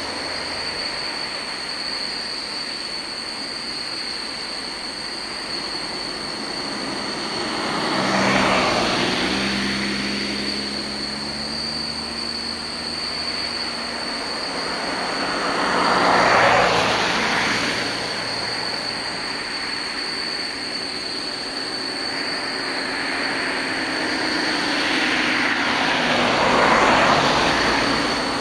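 Jet engines of a distant Embraer 175 airliner on landing approach and rollout, a steady rushing noise over a constant high-pitched whine. The noise swells three times, roughly every nine seconds, with a low engine drone sliding down after the first swell.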